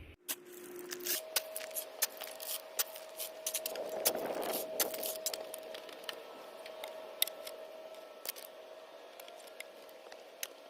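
Gravel stones clicking and rattling irregularly as gravel is shoveled in as backfill, busiest about four seconds in, over a faint steady tone.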